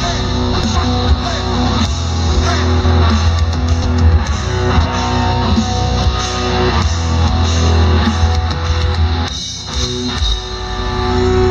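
Live band playing loud guitar-driven rock with strong bass, with a brief break about nine seconds in.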